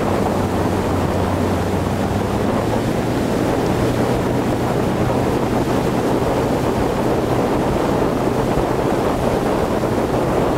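Ski boat engine running steadily at towing speed, a low even hum under the loud rush of water spray and wind buffeting the microphone.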